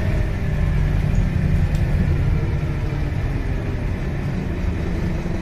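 Scania K230UB single-decker bus with a five-cylinder diesel engine running as it drives along, heard from inside the passenger saloon as a steady low drone mixed with road and tyre noise.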